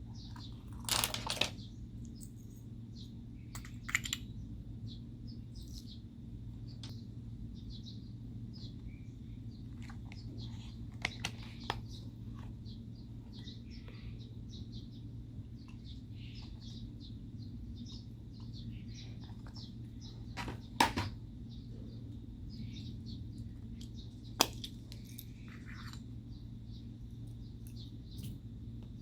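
Slime being squished and worked by hand, giving scattered small sticky clicks and crackly pops, with a few sharper clicks, the loudest about 21 seconds in. A steady low hum lies underneath.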